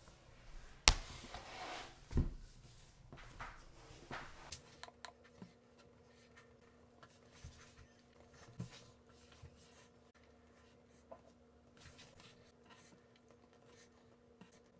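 Hands handling a laptop and its packaging: a sharp click about a second in and a knock near two seconds, then light taps and soft rubbing.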